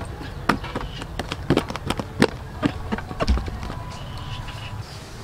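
A series of sharp, irregular clicks and light knocks over a low rumble.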